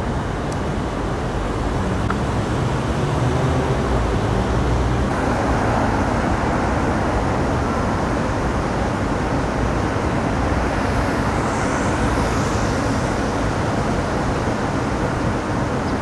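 City street ambience: a steady wash of road traffic from passing cars.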